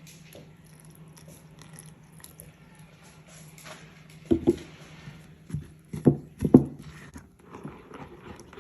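Brownie batter being mixed in a bowl after milk is added, heard as soft stirring with a few dull knocks of the spoon against the bowl partway through. A steady low hum runs underneath.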